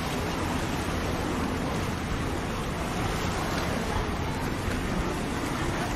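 Steady wind noise on the microphone, an even rushing hiss and rumble with no distinct events.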